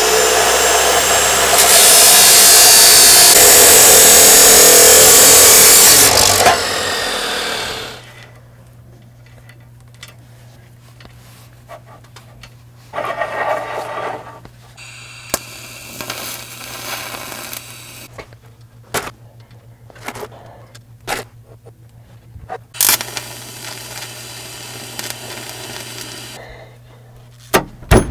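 Abrasive chop saw running and grinding through a bundle of steel chainsaw chain. The cut is loudest from about two seconds to six seconds in, then stops and the saw winds down. After that come clinks and rustles of the cut chain being handled on a steel bench over a steady low hum, with a few sharp metal knocks near the end.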